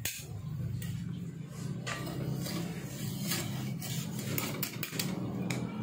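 Metal spatula scraping and clinking against a heavy martabak pan as a cooked martabak manis is loosened and lifted out, with a handful of sharp clinks around the middle and near the end. A steady low hum runs underneath.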